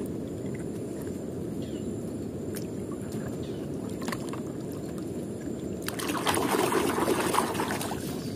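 A hand sloshing and splashing small toy cars through water in a plastic tub, loudest from about six seconds in. There are a few light clicks earlier, over a steady low rumble.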